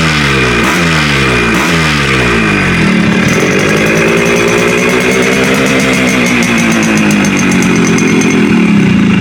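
Suzuki Shogun's two-stroke single-cylinder engine being revved. For about three seconds it is blipped repeatedly, each rev falling away, then it is held at higher revs that swell and ease off, rising again near the end.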